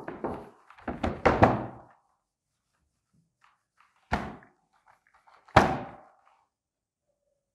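A cloth duster and hand thumping against a whiteboard as it is wiped clean: a quick run of thumps in the first two seconds, then two single thumps about four and five and a half seconds in, with faint wiping between them.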